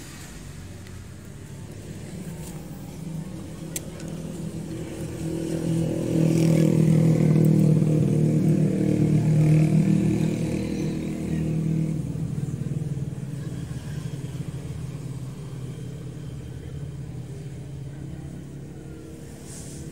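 A road vehicle's engine passing close by: it grows louder to its loudest about six to ten seconds in, then fades away.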